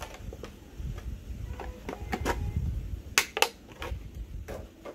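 Clear plastic packaging tray and cardboard box being handled and pulled apart: scattered crinkles and clicks, with two sharp plastic cracks close together about three seconds in.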